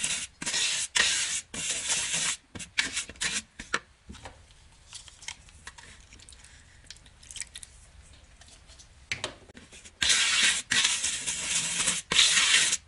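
A bristle brush scrubbing thick wet glaze through the mesh screen of a sieve in short, stop-start strokes, which go quiet for a few seconds in the middle. A louder continuous rushing noise fills the last three seconds.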